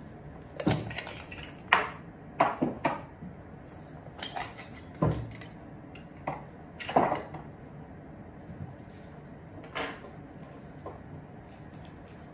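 Wooden shoe trees being handled, pulled out of a pair of suede shoes and set down, giving a string of hard knocks and clicks in short clusters.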